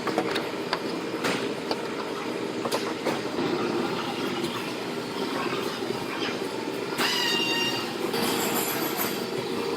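A steady machine hum with scattered clicks, and brief high squeals about seven seconds in.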